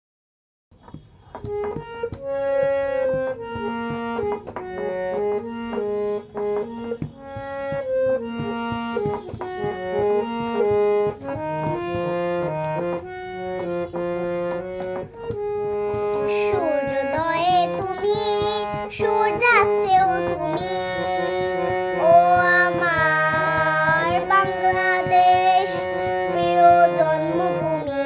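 Song accompaniment led by a reed instrument playing a melody of held notes over light percussion. About halfway in, a girl's singing voice comes in, wavering in pitch, and carries on over the accompaniment.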